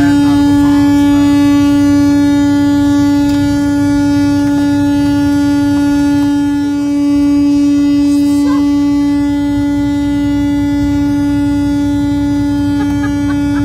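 Semi truck horn stuck on, sounding one continuous, unbroken blare at a steady pitch over a low rumble from the moving truck.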